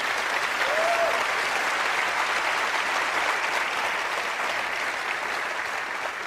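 Audience applauding, a steady clatter of many hands clapping that begins to fade near the end.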